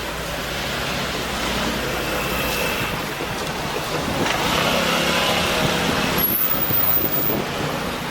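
A vehicle passing close by: a steady rush that builds, is loudest from about four to seven seconds in, then eases off.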